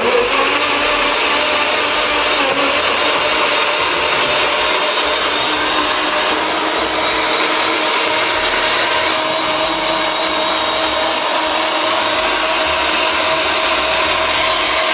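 NutriBullet blender motor running steadily at full speed, puréeing apple pieces with pineapple juice: a loud, even whine with a few steady tones over a rushing noise.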